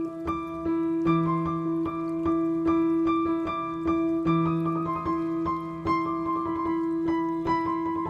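Background music: a piano playing an even run of single notes, about two to three a second, over sustained low notes.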